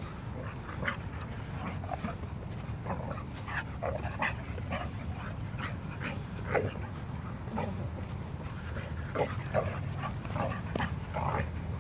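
An Irish Wolfhound puppy and a boxer at rough play, giving many short yips and whines scattered through, over a steady low rumble.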